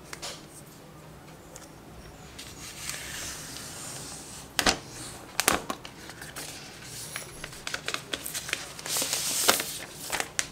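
Thin plastic protective wrap being peeled off a tablet and handled: crinkling and rustling with irregular sharp crackles, loudest a little under five seconds in and again around nine seconds in.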